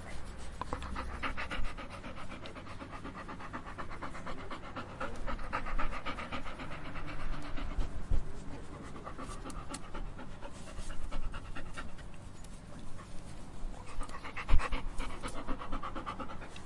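A dog panting rapidly in several bouts of quick, even breaths, with a couple of short low thumps.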